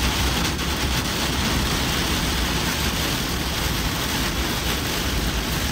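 Heavy rain pelting the windshield and roof of a moving vehicle, a steady dense hiss over the low rumble of the engine and road.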